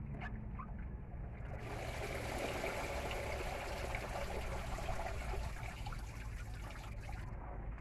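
A steady rushing hiss that starts about a second and a half in and cuts off abruptly near the end.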